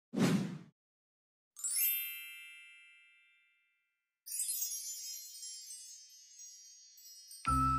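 Chime sound effects: a single bright chime rings out and fades over about two seconds, followed by a sustained shimmering tinkle like a wind chime. Background music with a bass line comes in near the end. A brief noisy burst comes right at the start.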